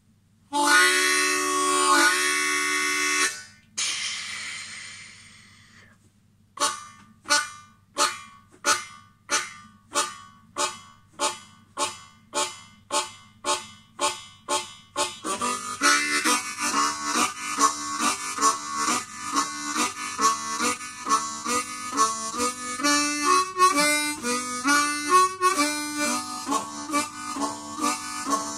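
Harmonica played hand-cupped as a train imitation: a loud held chord, a breathy blow that fades, then short chugging chords about two a second, which about halfway through become a continuous rhythmic shuffle with changing notes.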